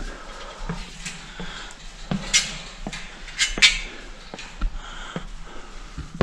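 Footsteps climbing the wooden stair treads of a steel fire tower, a steady run of knocks with a few sharper, brighter clinks in the middle.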